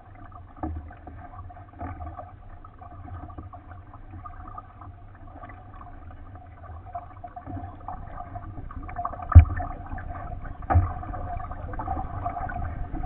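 Water gurgling and lapping against a kayak hull as it moves through the water, with a low rumble throughout. Two sharp knocks come near the end, about a second and a half apart.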